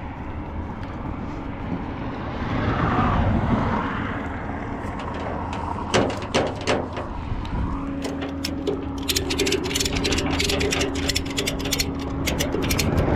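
Vehicle engine idling with a steady low hum. A held mechanical tone joins about eight seconds in, and a rapid run of sharp clicks follows in the last few seconds.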